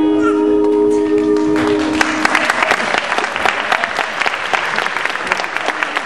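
Dance music ends on a held final chord, and about a second and a half in audience applause starts and goes on, a dense patter of clapping hands.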